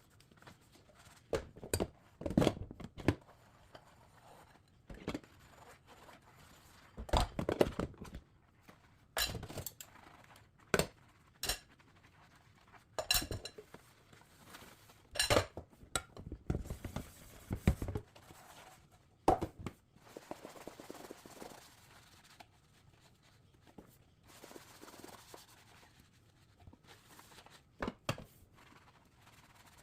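Dishes being hand-washed with a sponge and foamy dish soap: irregular clinks and knocks of dishes set down and handled, with quieter scrubbing and scraping between them.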